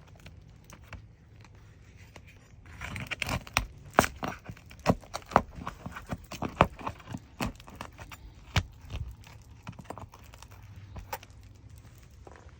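Roofing pry bar working an asphalt shingle loose: a run of sharp scrapes, clicks and tearing from about three seconds in until about ten seconds in, with quieter handling before and after.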